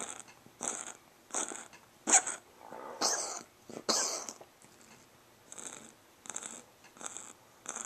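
Cat coughing: a run of short, breathy hacks, about three every two seconds, loudest near two seconds in, then a brief pause and fainter hacks.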